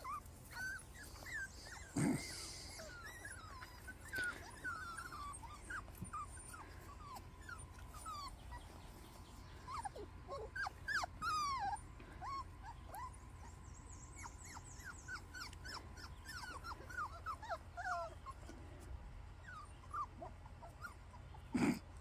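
Young Miniature American Shepherd puppies whimpering and yipping in many short, high squeaks scattered throughout, with two loud knocks, one about two seconds in and one near the end.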